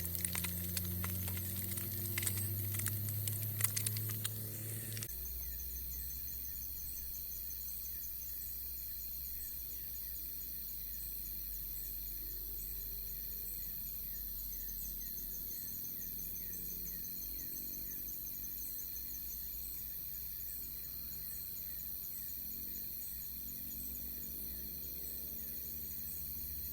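Rapid irregular tapping and clicking for the first five seconds or so. It then cuts to a steady outdoor hiss with insects chirping in a faint, regular high-pitched pulse.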